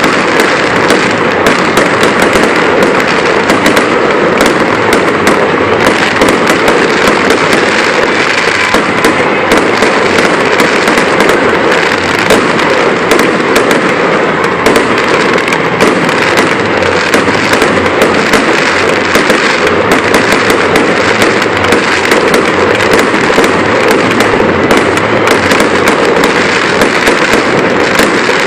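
Fireworks going off in a dense, continuous barrage: many overlapping bangs and crackles with no pause.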